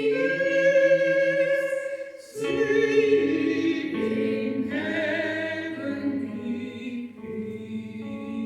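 Choir singing sustained chords in several voice parts, with a brief break for breath about two seconds in.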